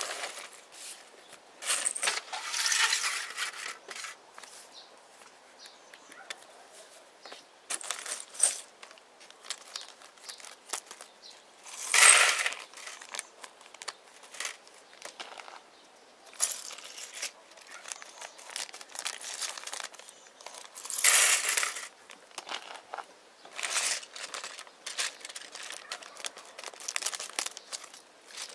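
Thin plastic bags crinkling and being snipped open with scissors, with small plastic toy bricks clattering out onto a plastic plate in several loud bursts.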